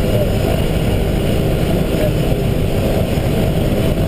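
Engine and propeller of a single-engine propeller aircraft running steadily, heard loud inside the cockpit.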